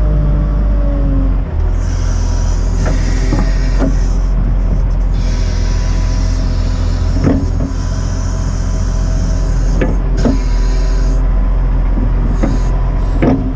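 Volvo L60E wheel loader's six-cylinder diesel running steadily, with the hydraulics whining as the bucket is lowered to push snow. A high hiss comes and goes, and there are a few sharp clunks.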